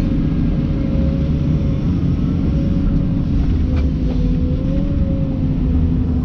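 Komatsu PC290 excavator's diesel engine running steadily under load, heard from inside the cab, with a low rumble and a steady whine that wavers slightly in pitch as the loaded bucket is lifted from the trench and swung over to dump.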